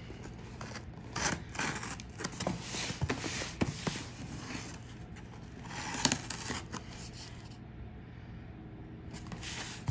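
Fingers scratching, rubbing and lightly knocking on a cardboard shipping box and its paper label, picking at the packing tape: irregular scrapes and small taps, with a longer rub about six seconds in and another near the end.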